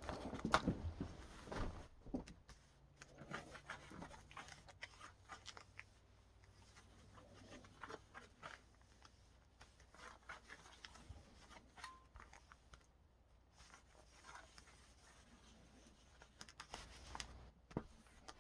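Faint rubbing, crinkling and scattered small clicks as a hot covering iron is worked over the loose plastic film covering of a foam RC airplane elevator.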